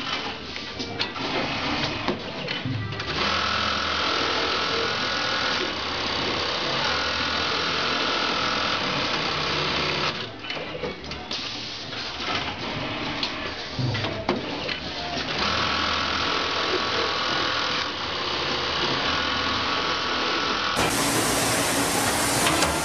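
Juki programmable pattern sewing machine stitching a back pocket onto jeans, its motor running steadily with a held whine in two long stretches. Between the stretches come clicks and knocks of the clamp frame being loaded and released. Near the end a different industrial sewing machine is heard.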